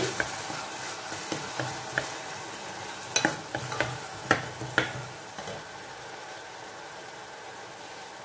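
Chopped onion, garlic and red pepper frying in oil in a stainless steel saucepan: a steady sizzle, with a plastic spoon stirring and tapping against the pan through the first half, then the sizzle alone.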